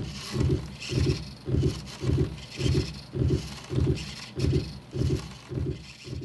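Sonified heartbeat: a steady run of short, low thumps, about two a second, played back in time with a person's heart beat, with a fainter high hiss underneath.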